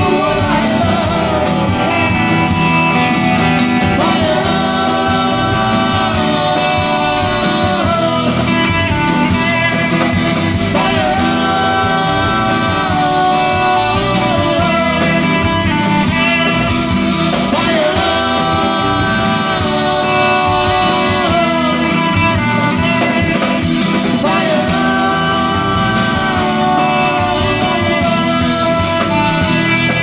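Live band playing a song: a woman singing held, sliding notes over electric and acoustic guitars, bass and drums.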